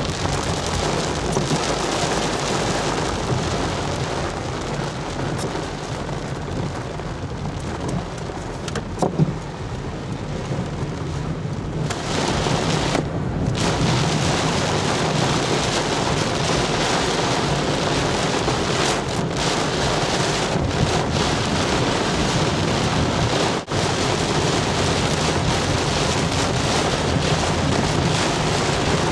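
Heavy tropical-storm rain pouring down steadily, with a short sharp sound about nine seconds in.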